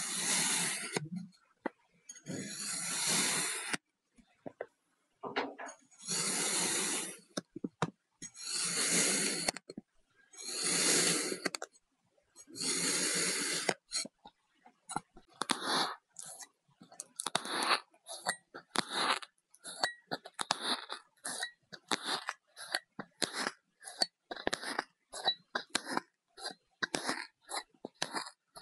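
Kinetic sand being cut and crunched. It starts with six long scraping strokes, each about a second long and about two seconds apart; from about halfway it turns into a quick run of short crunches, several a second.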